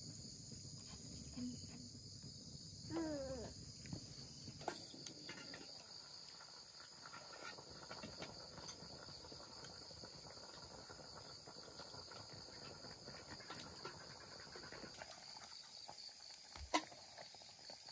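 Steady high-pitched chirring of insects. About three seconds in there is a short falling call, and near the end a single sharp click.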